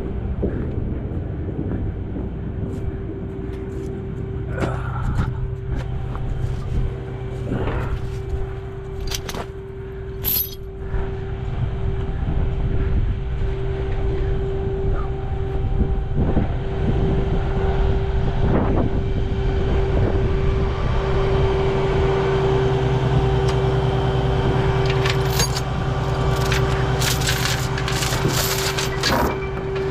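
Peterbilt 579 semi truck's diesel engine idling with a steady hum and a held whine, with scattered metallic clicks, clanks and rattles that come thicker near the end.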